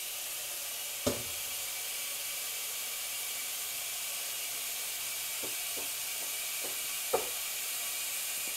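Kitchen tap running steadily into a pot, filling it with water, with a few light knocks from the pot, the clearest about a second in and near the end.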